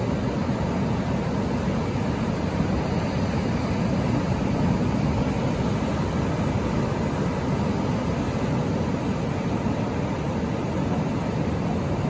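Ocean surf breaking offshore, a steady low rush of sea noise with no separate wave crashes standing out.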